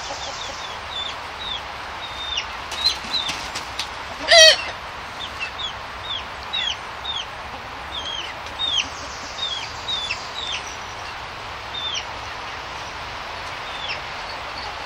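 Young chickens peeping: a steady run of short, high cheeps, each falling in pitch, about one or two a second. About four seconds in comes one louder, wavering call.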